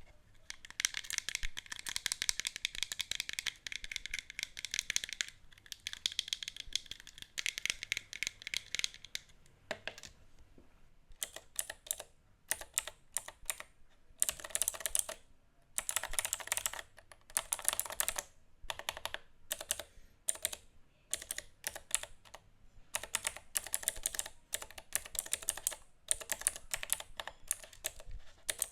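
Keyboard keys being typed in fast runs of sharp clicks with short pauses between them. The first long run sounds higher and thinner than the later bursts.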